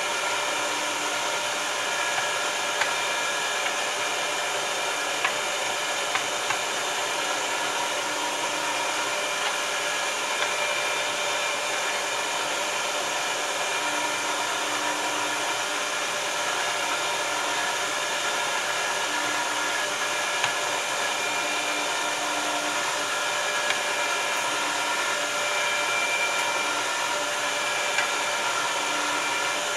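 Electric meat grinder's motor running steadily while it pushes ground meat through the stuffing tube into sausage casing, with a few light clicks scattered through.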